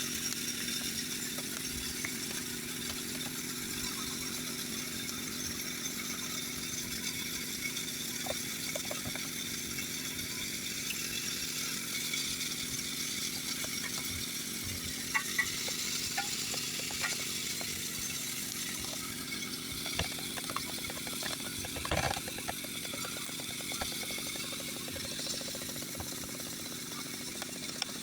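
Chainsaw engine running steadily, with a few short knocks partway through.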